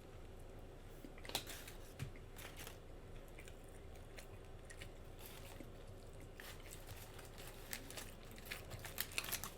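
Close-miked chewing and lip-smacking on a mouthful of bacon cheeseburger: scattered soft, wet smacks and clicks, coming quicker near the end.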